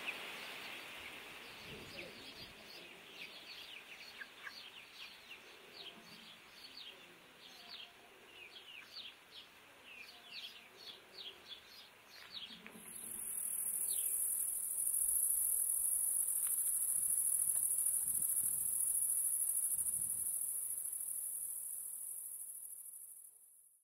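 Small birds chirping with many short, falling calls. About halfway through, a loud, steady, high-pitched insect drone sets in and becomes the loudest sound, then fades out just before the end.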